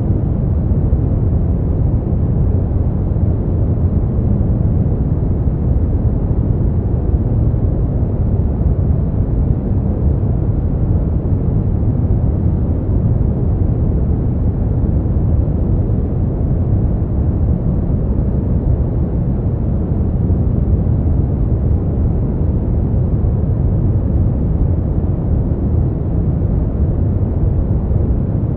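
Synthetic brown noise: a steady, smoothed rumbling hiss, deepest in the low range and darkening toward the highs, unchanging throughout.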